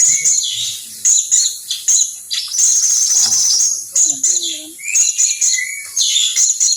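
Small birds chirping, short sharp high calls coming several times a second throughout, over a steady high drone of insects.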